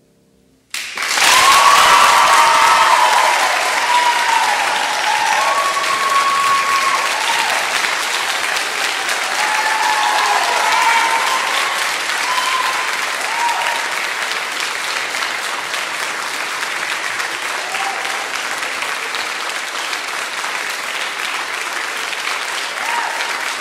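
Audience bursts into loud applause less than a second in, with whoops and cheers rising over the clapping, then keeps clapping steadily.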